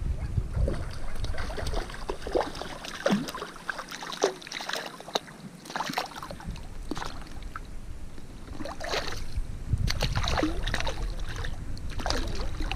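Repeated splashing of shallow water as a hooked mullet thrashes at the surface and is grabbed by hand.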